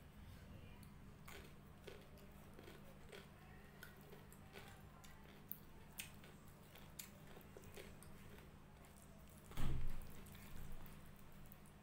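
Fingers squishing and mixing rice and dal on a plate, with chewing and small wet clicks. There is one louder thump about nine and a half seconds in.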